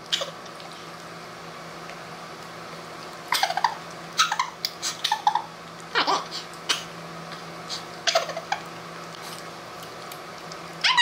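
Wordless grunts and throat noises from two people eating spoonfuls of peanut butter with their mouths held open by cheek retractors. A few seconds of low room hum come first, then short strained sounds come and go from about three seconds in.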